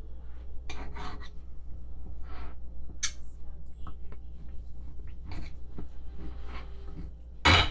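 Table knife sawing through a cooked T-bone steak, a few short rasping strokes with the blade scraping on a ceramic plate, and one louder knock or scrape near the end.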